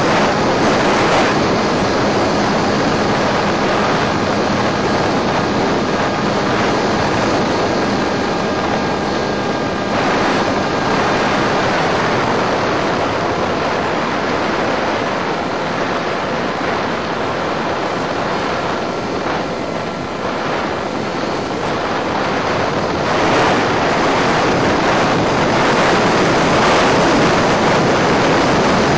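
Steady rushing wind and motor noise from an electric Multiplex EasyStar model plane in flight, heard through its onboard microphone. A faint motor whine runs through the first two-thirds and fades out as the throttle is cut back. Near the end the rush grows louder as the plane picks up speed.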